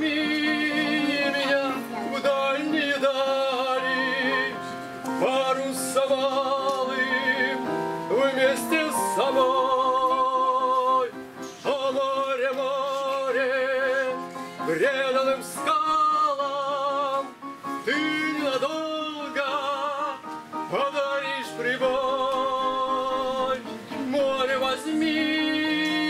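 A man singing in long held phrases with a wide vibrato, accompanied by an electronic keyboard.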